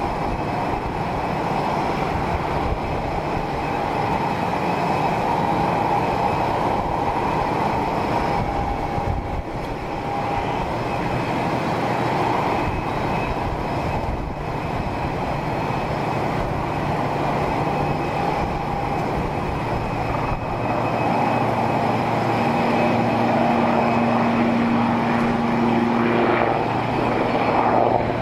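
Airplane engines running steadily: a continuous rumble with a thin whining tone on top, growing a little louder near the end.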